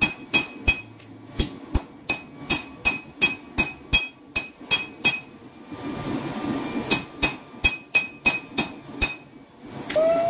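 Hand hammer striking a hot copper-and-steel cu mai billet on an anvil, about three blows a second, each with a high ring from the anvil; the blows pause for about a second and a half midway. Just before the end a hydraulic forging press starts up with a steady hum.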